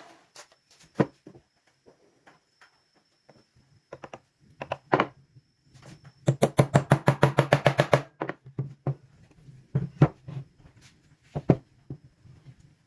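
Scattered knocks and taps on wood, with a quick run of about a dozen rapid strikes, some seven a second, a little past the middle.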